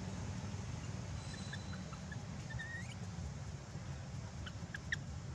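Scattered short, high chirps and squeaks from a small animal, one rising briefly in pitch about halfway through, over a steady low rumble.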